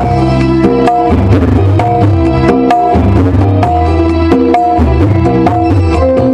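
Live band music: kendang barrel hand drums keeping a steady pattern of strokes under a keyboard melody of held notes and deep bass notes, with guitar.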